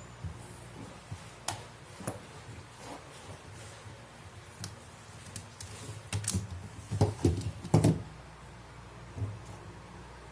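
Scattered sharp clicks and light knocks of small hard parts being handled, with the loudest cluster about six to eight seconds in, over a steady low hum.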